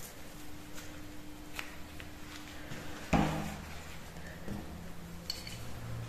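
Handling noise: a single sharp knock about halfway through with a brief ringing after it, and a few small clicks over a faint steady hum.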